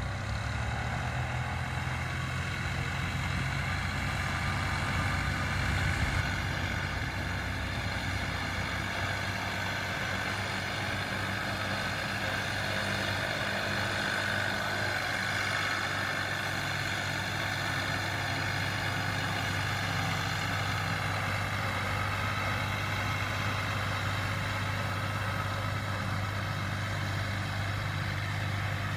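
Diesel farm tractor's engine running steadily as it pulls a boom crop sprayer, with a steady hiss over the engine note.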